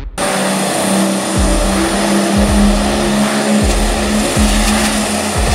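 Drag-racing funny truck's engine held at high revs during a burnout, running loud and steady. A music track's deep falling bass beat hits about once a second underneath.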